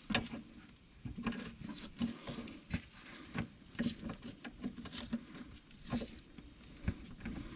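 Scattered light clicks, taps and scrapes of hand tools being handled and fitted, irregular and fairly quiet.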